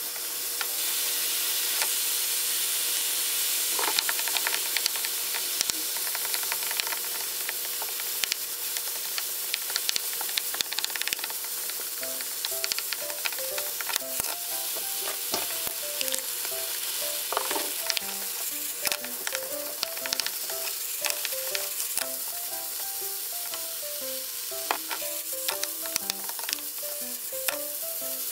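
Beef, carrots and rice sizzling in a frying pan while a wooden spatula stirs them, with frequent knocks and scrapes of the spatula on the pan. Soft background music with a simple melody comes in about halfway through.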